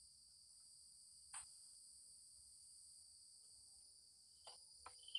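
Near silence: a faint steady high-pitched hiss, with a few faint short clicks about a second in and again near the end.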